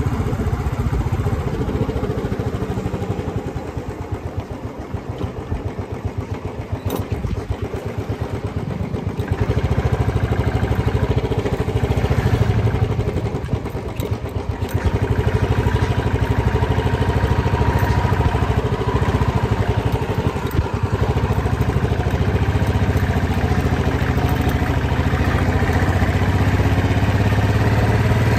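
Motorcycle engine running under way, a fast steady beat of exhaust pulses. It eases off about four seconds in and pulls harder again about nine seconds in, dips briefly near the middle, then runs steadily on the throttle.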